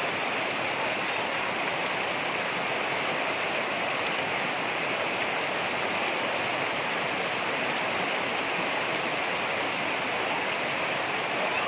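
Water rushing over rocks, a steady, even rush with no breaks.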